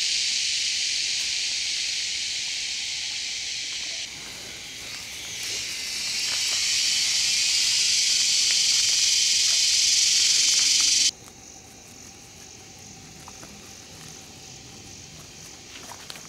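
Loud, steady high-pitched buzzing of forest insects. It dips about four seconds in, swells again, then cuts off suddenly about eleven seconds in, leaving only faint ground noise with a few light clicks.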